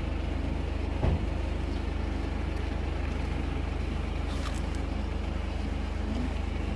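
Steady low rumble of an idling vehicle engine, with a single thump about a second in.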